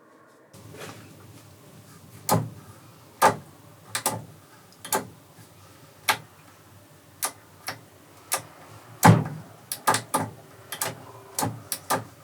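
A run of sharp, irregular knocks and clanks, about twenty in all, over a low steady hum; the loudest knock comes about nine seconds in.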